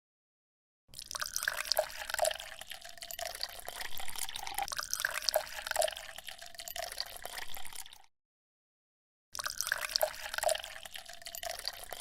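Water splashing and dripping, in two edited stretches separated by a cut to silence just after the middle.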